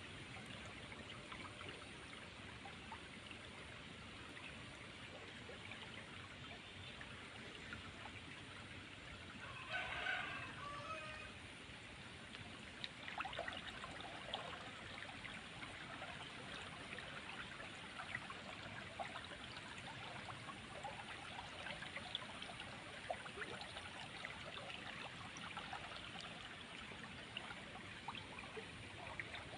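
Steady rush of running, trickling water. About ten seconds in there is a brief animal call, and scattered light ticks run through the second half.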